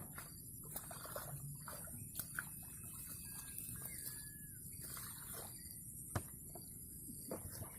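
Faint outdoor ambience: a steady high hiss, scattered small clicks and rustles, and a faint whistling call around the middle.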